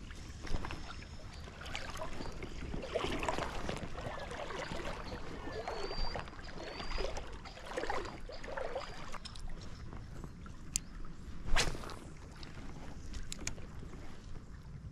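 River water sloshing and splashing in irregular bursts, with scattered small clicks and one sharp knock about three-quarters of the way through.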